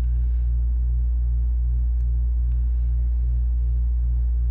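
Loud steady low electrical hum, with a faint pulsing in it about four times a second and a couple of faint clicks.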